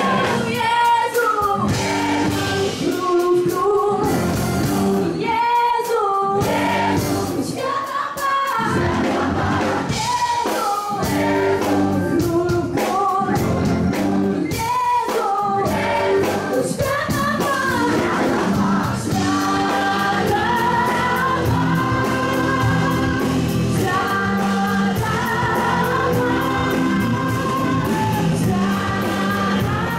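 Live Christian worship song: female lead vocalists and a choir singing with band accompaniment. About two-thirds of the way through, the singing settles into longer held notes in several voices.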